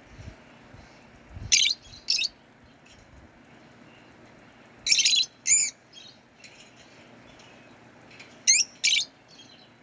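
Pet lovebirds chirping: three pairs of sharp, high-pitched chirps a few seconds apart, with fainter twittering between them.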